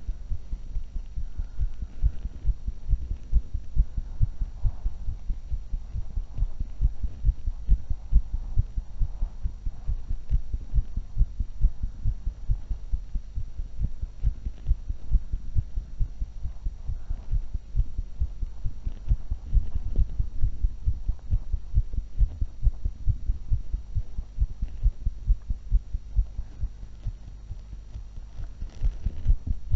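A human heart beating very fast after exercise, the heart still racing after walking, jogging and a few minutes of running. Low thumps follow each other in a quick, steady rhythm.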